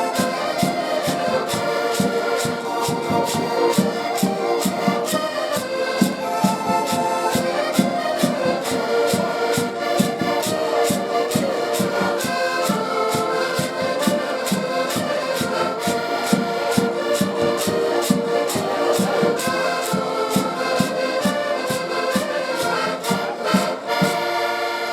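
Portuguese traditional folk group playing live: sustained melody over an even, steady beat of percussion.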